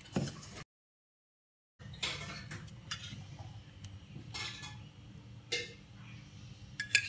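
A steel spoon clinking against a stainless steel bowl and pot as spoonfuls of water are added to flour for dough: separate clinks a second or so apart, with the sound cutting out completely for about a second near the start.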